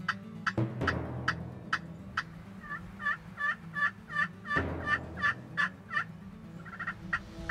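Pot-style friction turkey call scraped with a wooden-tipped striker, imitating a hen: several sharp single clucks, then a run of about a dozen evenly paced yelps, then a few quick clucks near the end.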